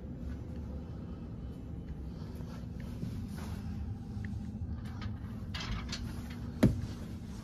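Steady hum of a 2022 Carrier Infinity indoor air handler's blower running, with some rustling and one sharp knock about six and a half seconds in.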